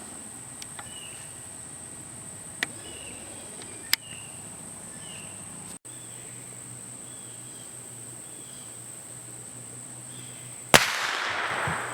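A single shot from a Marlin bolt-action .22 LR rifle about eleven seconds in: one sharp crack with an echo that dies away over about a second. Before it, a steady high insect buzz with short repeated chirps and a couple of small clicks.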